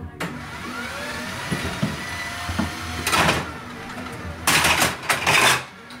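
Small electric motor driving a homemade beer-bottle dispenser, running with a rising whine, while glass beer bottles clatter and roll along the metal rack in loud bursts about three seconds in and again from about four and a half to five and a half seconds.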